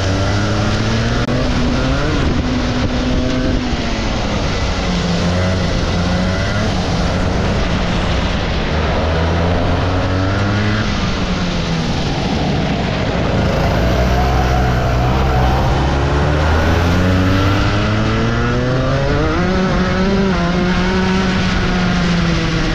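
Rotax kart's 125cc two-stroke single-cylinder engine heard from on board, its revs repeatedly climbing on the straights and falling away into the corners, rising again strongly near the end.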